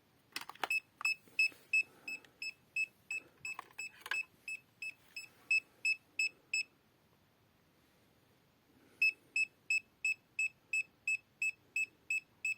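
An RD630 EMF meter's alarm beeping, about three short high-pitched beeps a second. It breaks off for about two seconds and starts again near the end, with a few handling clicks early on. The alarm signals that the electric and magnetic field strength near the LED lamp's AC/DC adapter is above the meter's threshold.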